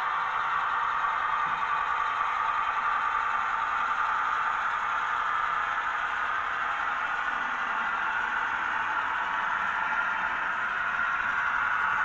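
Heljan OO gauge Hymek model diesel and its short train of freight wagons running slowly along the model track: a steady, even mechanical running noise.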